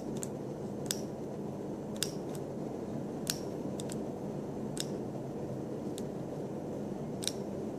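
Vape mod's fire button clicking about eight times at uneven intervals as a freshly built single-wire coil on a Genesis rebuildable atomizer is pulsed until it glows. A steady low room hum lies underneath.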